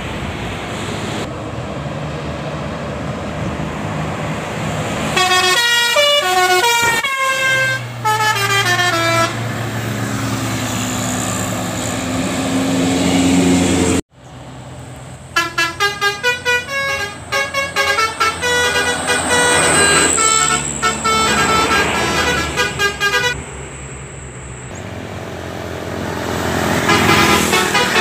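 Multi-tone 'telolet' bus horns playing quick melodic runs of stepping notes, twice, over diesel engine and road noise from passing buses. A bus passes close near the end.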